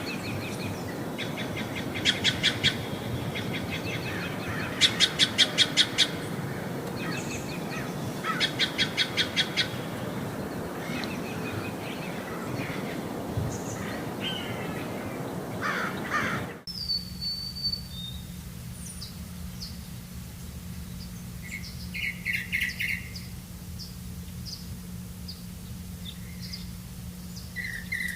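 Wild birds calling and chirping, with fast runs of repeated high notes over a steady rushing background. About two-thirds of the way through the sound cuts abruptly to a quieter background with a low hum and scattered short chirps.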